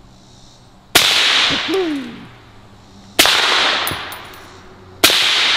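Three shots from an LWRC SIX8 A5 rifle in 6.8 SPC fitted with a Banish 30 suppressor, about two seconds apart, each a sharp report that dies away over about a second.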